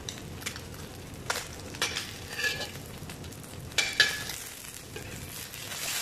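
A piece of fish sizzling as it fries in a stainless steel wok, with metal tongs clinking against the pan several times as the fish is moved.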